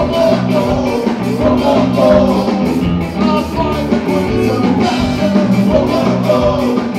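A ska band playing live: electric guitars, bass guitar and a drum kit at a steady beat, with cymbal hits marking the rhythm.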